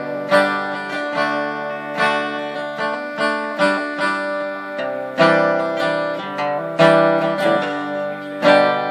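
Acoustic guitar strumming chords in an instrumental break, each chord struck and left to ring, a new one about every one and a half to two seconds.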